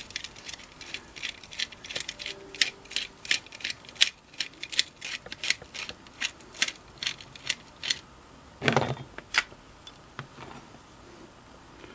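Screwdriver backing a self-tapping sheet-metal screw out of a metal foot-pedal case: a run of sharp, even clicks, about four a second, for roughly eight seconds. Then two heavier knocks about nine seconds in.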